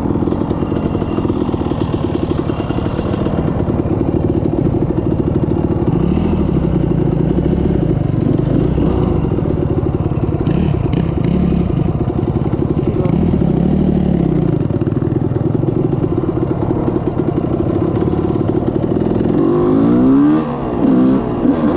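Yamaha YFZ450R quad's single-cylinder four-stroke engine with a full FMF exhaust, running under way, its pitch rising and falling with the throttle. Near the end the engine is revved up and down quickly several times.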